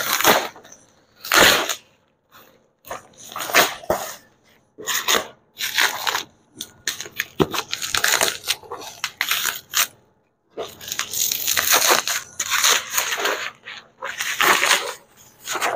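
Plastic bubble wrap crinkling and rustling in irregular bursts as it is pulled off a cardboard box, then cardboard flaps scraping and rubbing as the box is opened, with a brief pause about two-thirds of the way through.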